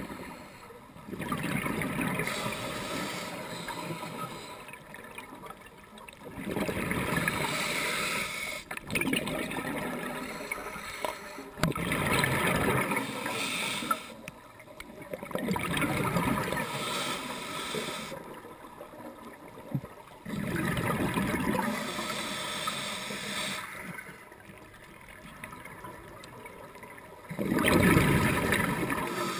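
A scuba diver breathing through a regulator underwater: bubbly rushes of exhaled air come every four to six seconds, with quieter gaps between.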